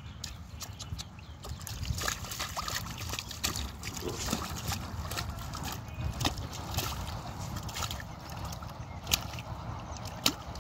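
Hands splashing and sloshing in shallow muddy water while grabbing fish, with the fish thrashing in the mud; irregular wet splashes and slaps, two sharper ones near the end.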